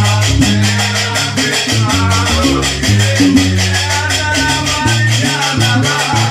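Gnawa music: a deep plucked guembri bass line stepping between low notes, under the fast, even clatter of qraqeb iron castanets.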